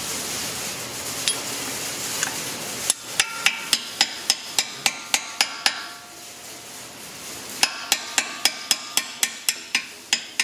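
Light metal-on-metal taps of a claw hammer driving the brake pad retaining pin through a Porsche Cayenne front brake caliper. The taps come at about four a second in two runs, with a short pause between them.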